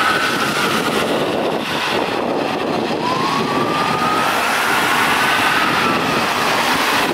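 A fire truck's siren wails twice, rising slowly and then falling, over the steady rush of traffic on a wet road.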